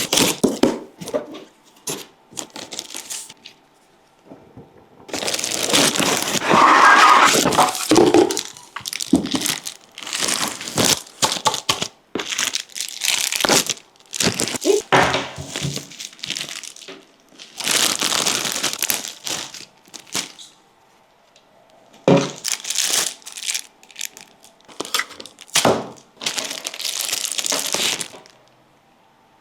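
Packaging being unwrapped by hand: irregular stretches of crinkling, crumpling and tearing, broken by short pauses and a few sharp knocks.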